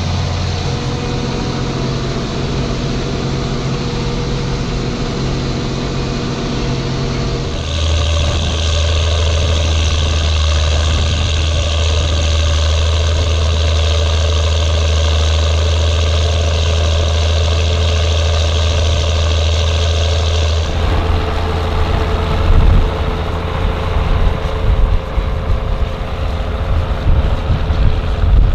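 Ford TW tractor's six-cylinder diesel engine pulling steadily under load while ploughing. About a quarter of the way in its note steps up louder and higher, and about two-thirds in it drops back. Near the end, irregular knocks and bumps come in over the engine.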